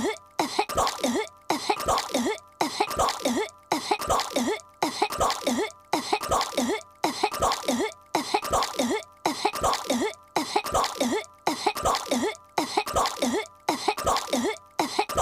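A cartoon girl's voice coughing and hacking as if choking on chewing gum. The same short cough clip loops over and over, about once a second, each pass cut off by a brief gap.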